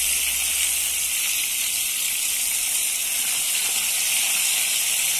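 Flour-dusted fish pieces frying in hot fat in a frying pan: a steady sizzle.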